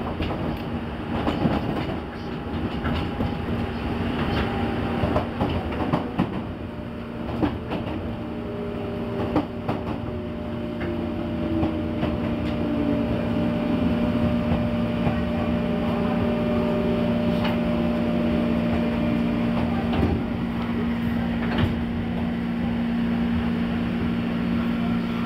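Interior of a JR 201 series chopper-controlled electric commuter train braking into a station: rail-joint clicks in the first few seconds, a falling whine as it slows, then a steady low hum once it stands at the platform.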